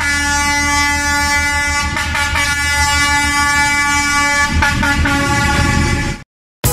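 D12E diesel locomotive's air horn sounding one long steady chord for about six seconds, briefly broken twice, over a low rumble. It cuts off abruptly.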